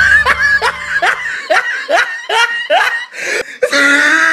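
A person laughing hard in a run of short falling 'ha' bursts, about three a second, with the end of a music bed stopping about a second in.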